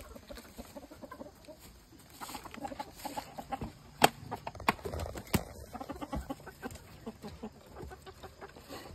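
Chickens clucking in short, repeated calls, with a few sharp knocks around the middle, the loudest about four seconds in.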